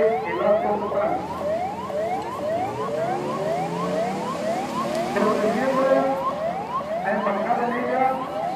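Siren sounding a fast yelp: short rising whoops, about three a second, repeating evenly.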